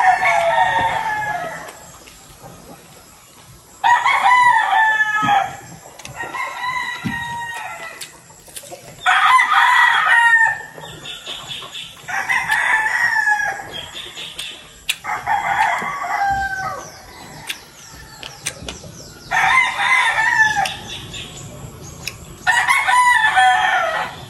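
Roosters crowing again and again: a loud crow every three to five seconds, each about a second and a half long and falling away at the end, with fainter crows answering in between.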